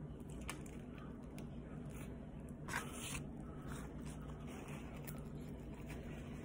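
Quiet eating noises from chewing a fried chicken sandwich: soft clicks and crackles, with one short, louder crinkle about three seconds in, over a low steady hum. Near the end a paper napkin rubs over the face.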